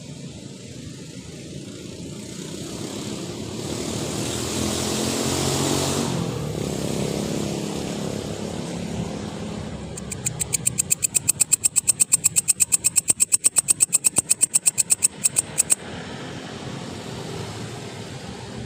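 A motor vehicle passes, its sound swelling and fading over the first half. Then a grasshopper calls: a loud, high-pitched, rapid pulsed buzz, about eight pulses a second, lasting around five seconds before stopping abruptly.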